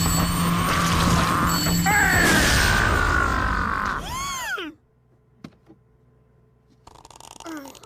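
Cartoon sound effects: a loud mechanical clattering racket with descending whistling tones over music, ending about four seconds in with a wobbling, springy sweep of pitch. It then falls almost quiet apart from a single click, and sliding pitched sounds return near the end.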